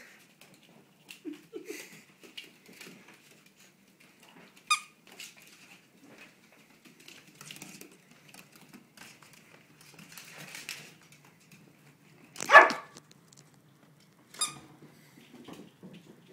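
Small white dog barking in play: a few short, sharp barks spread out, the loudest about three-quarters of the way through.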